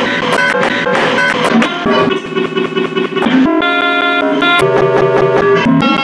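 Harsh electronic noise from a homemade electronic gadget played through a small amplifier. Dense, clicking hiss gives way about two seconds in to buzzing tones that jump to a new pitch every second or so.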